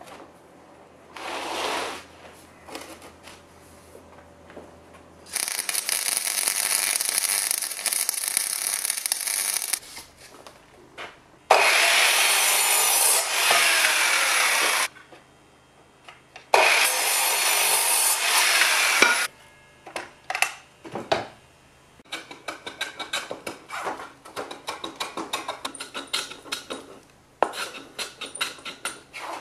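A mitre saw cutting timber in several loud runs of a few seconds each, then a hand plane shaving a wooden block in quick, repeated strokes.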